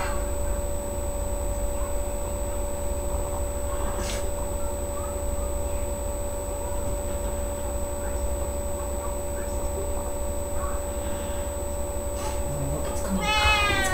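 Steady electrical hum with a constant high whine over a low rumble. Near the end comes a short high-pitched voice.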